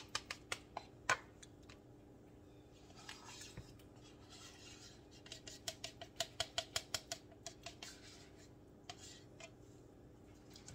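Spoon clinking and scraping against a dish while sour cream is measured out for cake batter. A quick run of clicks comes at the start, a short scrape about three seconds in, then a steady run of about five light taps a second midway.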